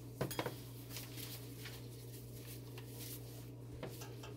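Light clinks and knocks of utensils against a stainless steel pot of soap oils and lye solution: a silicone spatula stirring and a stick blender's metal head being lowered in, ready to blend. Two sharp clicks come just after the start, with fainter ticks later over a low steady hum.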